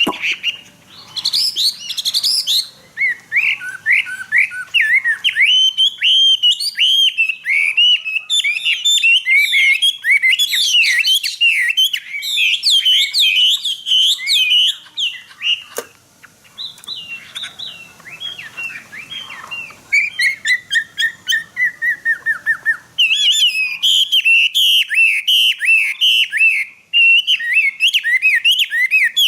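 Chinese hwamei (melodious laughingthrush) singing loudly in a cage: a long, varied song of fast repeated whistled notes and slurred phrases, with one sharp click about halfway through.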